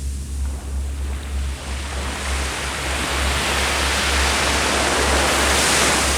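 Ocean waves on the shore: a wave's wash hisses louder over a few seconds, peaks near the end, then drops away suddenly, over a steady low rumble.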